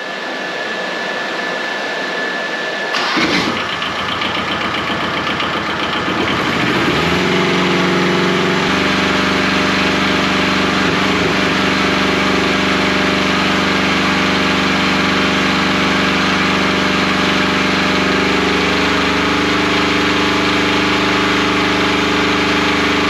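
Kubota engine of a home-built DC generator coming in about three seconds in, climbing in revs around six to eight seconds in, then running steadily at high revs, held at its maximum RPM to bring the cooling system up to temperature.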